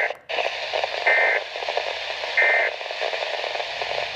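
Weather radio receiver sounding short bursts of digital SAME alert data tones, each about a third of a second long and a little over a second apart, over steady radio static.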